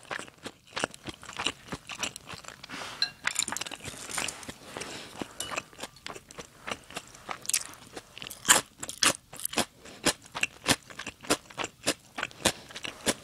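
Close-miked eating sounds: crunchy chewing, with clicks and scrapes of wooden chopsticks and a plastic spoon against the dishes. The chewing falls into a quick steady rhythm in the last few seconds.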